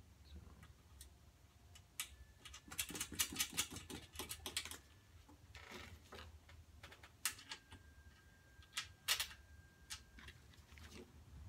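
Small loose metal hardware (bolts, nuts and washers) clicking and clinking as it is picked out of a pile and handled while swivel casters are fitted to a sheet-metal cart base. The clicks come in a quick cluster a few seconds in, then as scattered single clicks.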